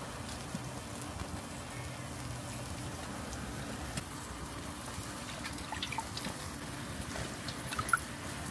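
Chicken yakitori skewers sizzling on a grill, a steady crackling hiss. In the second half come a few light clicks and drips as grilled skewers are dunked in a metal pot of sauce and lifted out dripping, with a sharper knock near the end.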